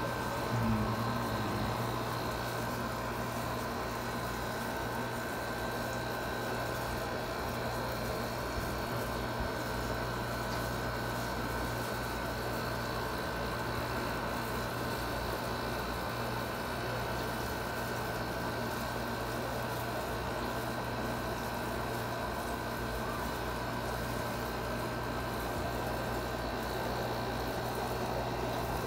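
Steady background hum and hiss, with a few faint steady tones over it and a short low sound about a second in.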